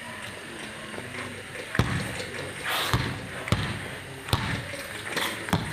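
A basketball being dribbled on a hard court. There are about five bounces at uneven gaps, starting a little under two seconds in.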